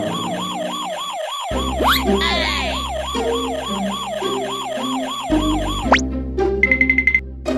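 Warbling electronic siren-like alarm effect, its pitch wobbling up and down about three times a second, over background music. It cuts off with a quick upward sweep about six seconds in, followed by a short rapid run of high beeps.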